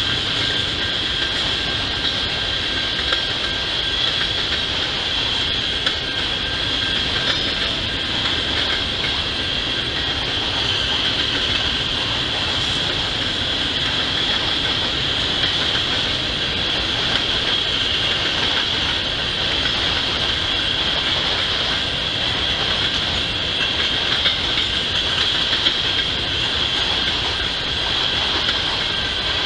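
BNSF freight train of covered hopper cars rolling steadily past, its wheels and cars making a continuous rolling noise with a steady high-pitched whine over it.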